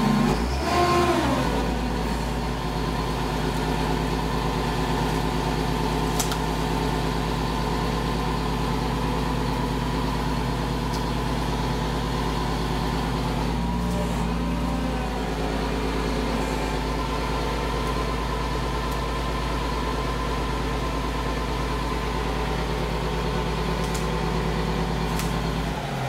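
Crane truck's engine idling steadily, with a brief shift in its note at the start and again about halfway through.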